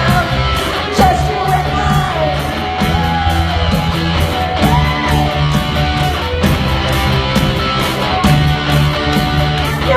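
Live rock band playing with drums, electric guitar and bass guitar to a steady beat, loud and full.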